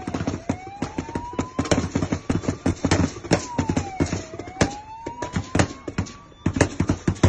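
Rapid, irregular gunfire, several shots a second, with a siren wailing slowly down and up behind it, dipping lowest near the start and again about four seconds in.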